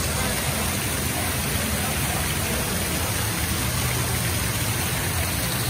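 Water pouring steadily down an artificial rock waterfall, a constant even splashing.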